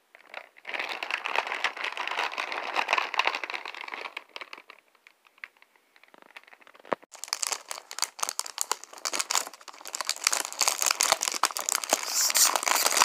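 Plastic film wrapper of a cookie package crinkling as it is handled, then pulled open. It goes quieter for a couple of seconds in the middle, gives a sharp click about seven seconds in, and then crackles louder and denser.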